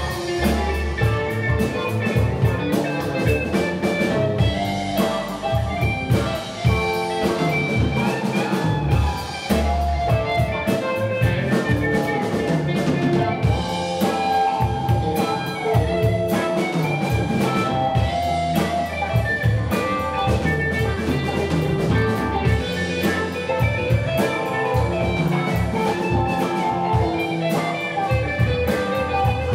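Live band playing electric guitars, bass guitar and drum kit, with a melodic guitar line wavering over a steady drum beat.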